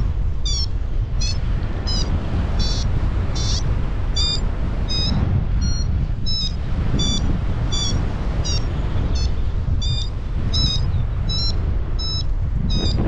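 Paragliding variometer beeping in short high-pitched pips, about one and a half a second, the tone a variometer gives while the glider is climbing in lift. Wind rushes steadily on the microphone underneath.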